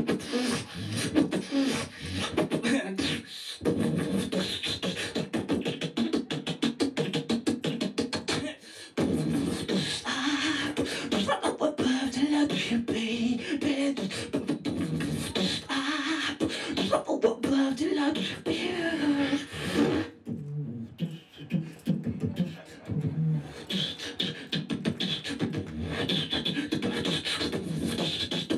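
Live beatboxing into a handheld microphone: rapid percussive mouth clicks and kick-like hits mixed with hummed, pitched vocal lines, with brief breaks about three and nine seconds in.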